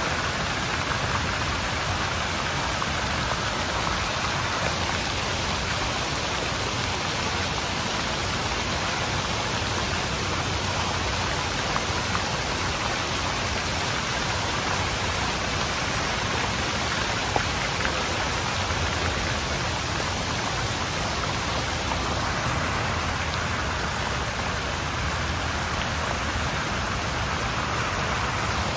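Large outdoor fountain: water jets splashing down into the pool and water spilling over the stone rim of the basin, a steady, even rush of splashing water.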